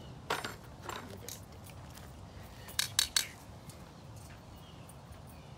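Metal clinking: a few sharp clicks about a third of a second in, then a louder group of three quick clinks around three seconds in.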